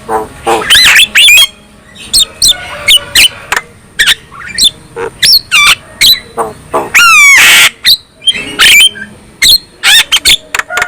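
Javan myna calling in a rapid, varied run of short whistles, chattering and squawks, with a loud harsh rasping call about seven seconds in.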